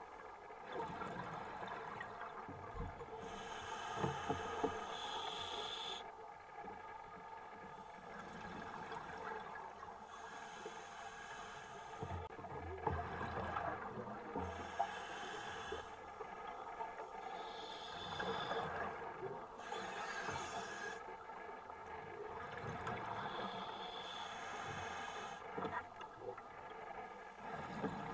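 Scuba diver breathing through a regulator underwater: a hissing inhale and a bubbling exhale take turns every few seconds.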